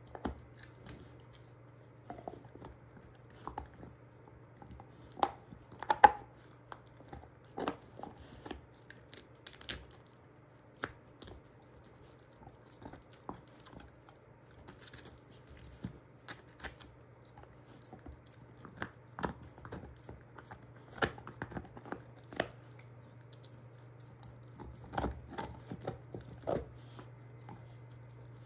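German shorthaired pointer gnawing a beef soup bone: irregular crunches and sharp cracks of teeth on bone, the loudest about six seconds in.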